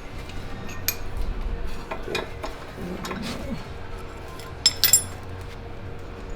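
Metal-on-metal tapping: a hammer striking the suspension arms of an Audi B5 S4 to knock them out of their seats, a few sharp clinks with the loudest two in quick succession about five seconds in.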